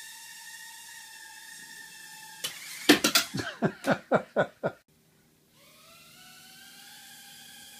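Tiny quadcopter's motors whining steadily. A little over two seconds in, a rapid series of about eight loud, sharp clattering knocks runs for about two seconds; the motors then cut out for half a second and spin back up with a rising whine.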